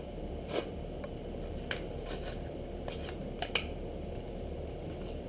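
Plastic lure packaging being opened by hand to take out a Strike King Red Eye Shad: a few scattered clicks and crinkles over a steady low hum.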